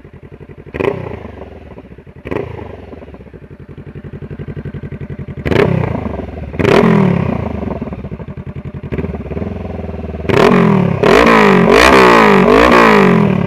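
2014 Honda CBR500R's parallel-twin engine idling through a Coffmans slip-on exhaust with the baffle taken out, really loud, blipped in short sharp revs every second or few. Near the end it is revved up and down repeatedly for about three seconds, the loudest part.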